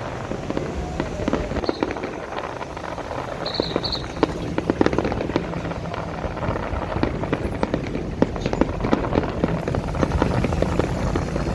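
Fireworks going off in a dense run of rapid crackling pops, thickest in the middle of the stretch, over a steady low rumble.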